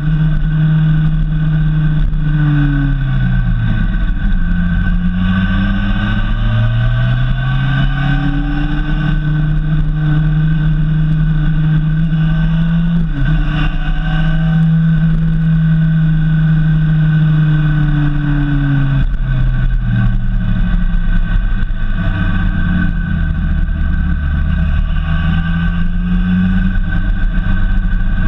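Honda CBF 600's inline-four engine on the move, its pitch falling as the throttle is closed and rising again as it is opened, several times, over a steady low rumble of wind and road.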